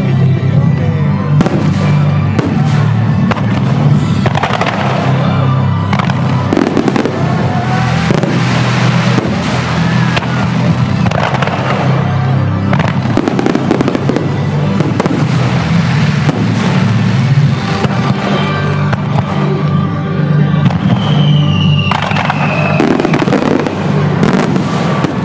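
Fireworks bursting and crackling in rapid, overlapping reports, with music playing underneath.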